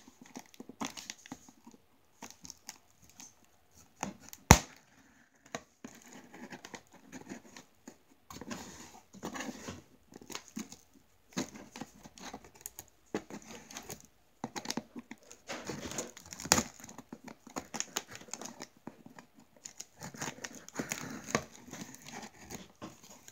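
Packing tape being cut and pulled on a cardboard shipping box: irregular crackling, tearing and scraping of tape and cardboard, with one sharp knock about four and a half seconds in.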